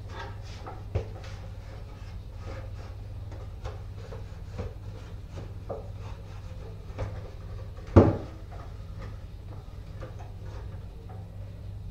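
Tall wooden stool handled on a tiled floor: light wooden knocks and scrapes as it is tipped and wiped with a cloth, with a small knock about a second in and one louder knock about eight seconds in.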